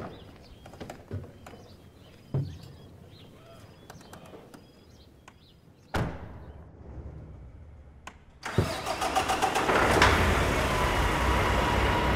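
Kenworth W990 big-rig diesel engine starting up suddenly about two-thirds of the way in and then running steadily and loud. Before that there are only a few faint knocks and a thud about halfway.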